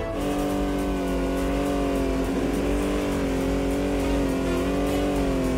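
A cartoon vehicle's engine running steadily at an even pitch.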